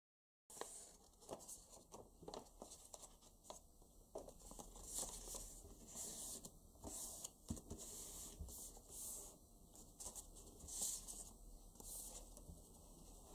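Sheets of paper rustling, sliding and creasing as they are folded by hand into an origami sailboat, with scattered light taps and crinkles.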